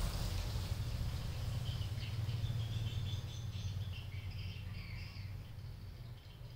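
Small birds chirping, short scattered chirps at varying pitch that start about two seconds in, over a steady low rumble.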